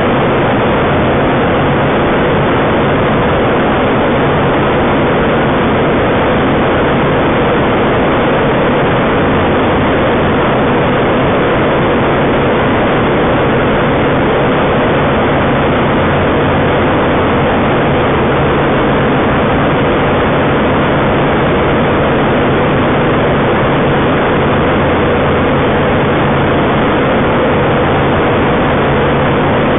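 Engine and propeller of a homebuilt Kitfox-type light taildragger running steadily in level flight, heard loud inside the cockpit.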